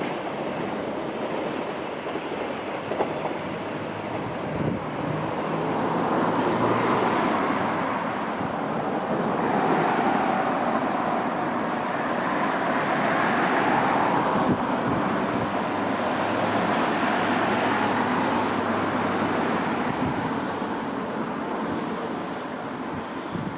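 A train running through the station, a steady rumble that swells about a quarter of the way in and eases off near the end, with a few scattered clicks.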